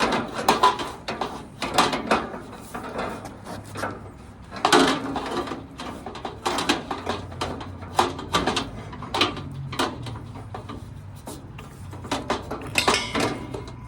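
Irregular metallic clanks, knocks and scrapes of gas grill burner tubes and metal parts being handled and slid into place inside the grill.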